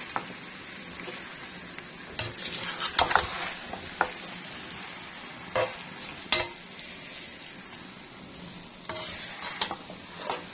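Macaroni with chicken and vegetables being stirred in a large aluminium pan with a metal spatula: a steady frying sizzle with several sharp scrapes and clinks of the spatula against the pan.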